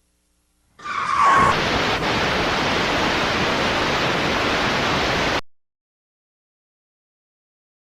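A loud burst of steady hissing noise, about four and a half seconds long, with a short tone near its start; it begins and cuts off abruptly.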